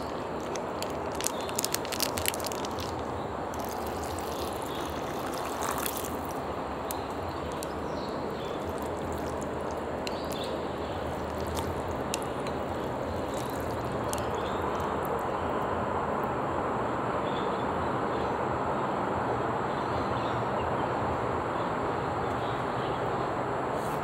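Liquid soup base squeezed from a plastic sachet onto soba noodles, with a few small clicks of the packet in the first few seconds, then water poured into the ceramic bowl as a steady pouring hiss, a little louder in the second half.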